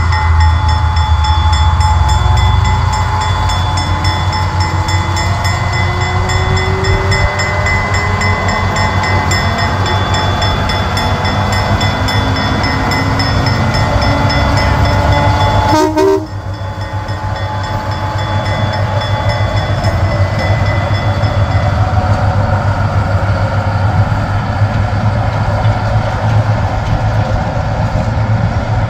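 Diesel locomotive engine working as it pulls a passenger train away, its pitch climbing slowly over several seconds over a deep steady drone, with steady high whining tones above. About halfway through a sharp click and a sudden drop in level break the sound. After that the engine and the rolling train go on at a steady, gradually building level.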